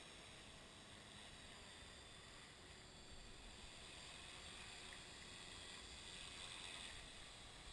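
Near silence: a faint steady hiss, with the high, faint rotor and motor noise of a distant 450-size radio-controlled helicopter swelling slightly in the middle as it flies nearer.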